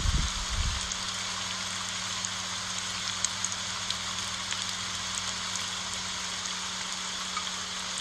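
Steady rain falling on broad leaves: an even hiss with scattered drops ticking. Some heavier low thumps die away within the first second.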